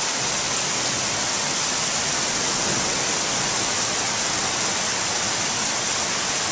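Heavy monsoon rain falling while floodwater a little over a foot deep rushes down a street, heard together as a steady, even hiss.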